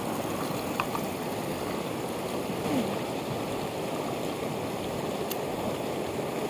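Mountain torrent rushing over rocks: a steady rush of water, with a faint click about a second in and another near the end.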